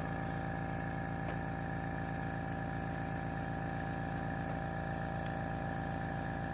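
Paasche airbrush air compressor motor running steadily with a fast, even pulsing hum as it refills its air tank after the airbrush trigger was pressed.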